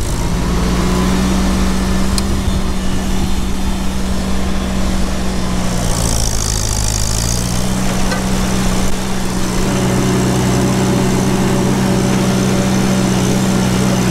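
Small tractor engine pulling a loaded manure spreader. It comes up to a steady run just after the start. About six seconds in the note drops for a second or so, then picks back up and runs on steadily.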